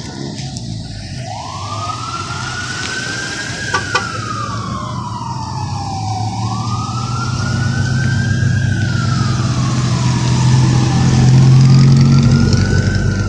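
Siren wailing in three slow cycles, each rising in pitch then sliding down more slowly. Under it, the engines of pickup trucks passing close by rumble, louder near the end.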